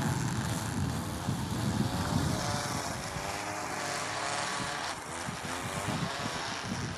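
Lure-coursing machine's motor running, its pitch rising and falling as it drags the lure line across the field.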